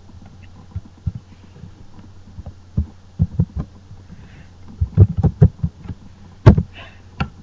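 Computer keyboard being typed on: irregular dull key taps, in a cluster about 3 to 3.5 seconds in and a denser run around 5 to 6.5 seconds, over a steady low hum.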